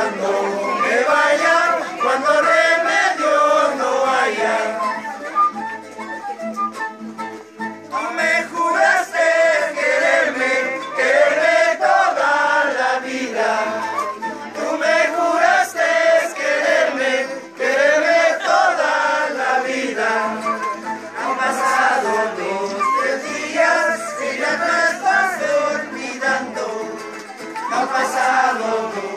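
A group of voices singing a folk song together in chorus, accompanied by guitar, with a short lull about seven seconds in.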